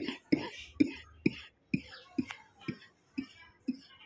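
Background music with a steady percussive beat, about two beats a second.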